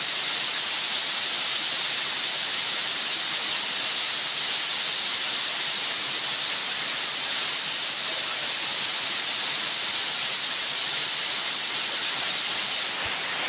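Steady rushing of flowing water, an even hiss that holds without a break.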